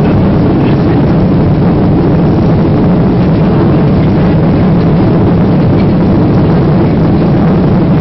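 Cabin noise of a Boeing 737-800 climbing out just after takeoff: the CFM56-7B jet engines running at high thrust, heard from a window seat as a loud, steady rushing noise with a low hum.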